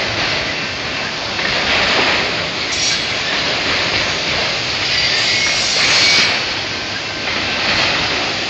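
Freight train of autorack car carriers rolling past slowly: a steady rumble and rattle of steel wheels on the rails, with louder, hissier stretches about two seconds in and again around six seconds in.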